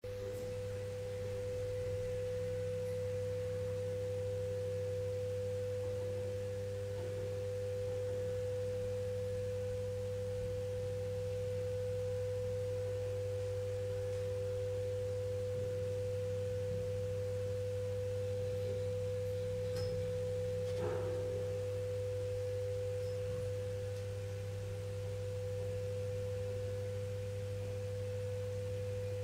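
A steady pure tone at one unchanging pitch, held without a break over a low steady hum.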